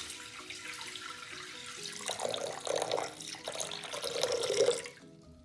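Cold water pouring from a carafe into the stainless-steel mixing bowl of a Thermomix TM5, splashing onto the blades, swelling louder twice; the pour stops shortly before the end.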